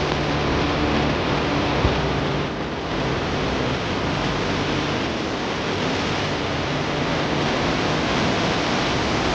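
Floodwater rushing in a swollen river: a steady, dense roar of water, dipping slightly about two and a half seconds in.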